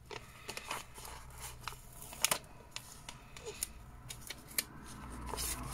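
Sticker sheets being handled: light paper rustling with a few scattered sharp ticks, stickers being picked from the sheet.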